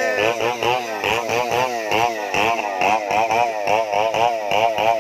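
Stihl 070 single-cylinder two-stroke chainsaw engine running with an odd, unsteady note: its pitch dips and climbs back over and over, about three times a second.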